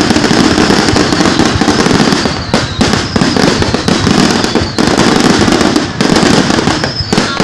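Fireworks display going off in dense, nearly continuous bangs and crackling, with a thin high whistle drifting slowly down in pitch.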